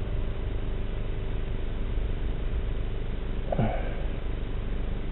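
A steady low hum with a few faint held tones, and a man's short falling grunt about three and a half seconds in.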